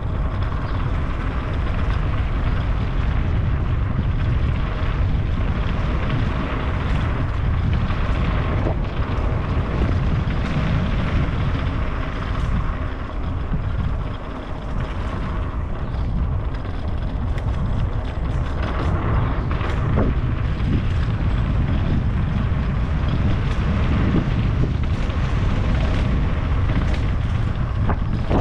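Steady low rumble with wind rushing over the microphone, as from moving fast outdoors.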